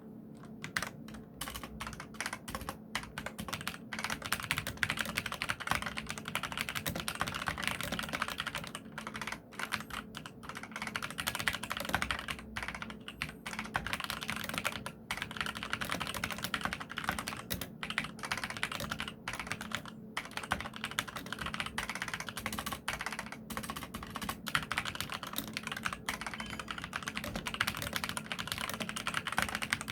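Continuous fast typing on a mechanical keyboard with Kailh Red linear switches (Skydigital NKeyboard NKey-R3 RGB): a dense run of key clacks with a few short pauses.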